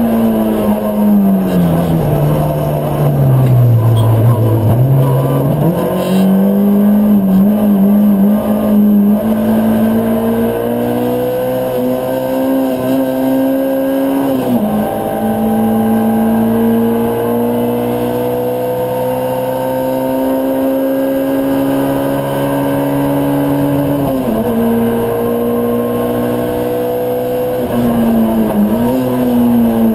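Ford Fiesta R2 rally car's four-cylinder engine under hard use, heard from inside the cabin. The revs fall low about four seconds in and climb back through quick gear changes. The engine then pulls long, slowly rising runs, each broken by a sudden drop at an upshift, around halfway, at about 24 seconds and near the end.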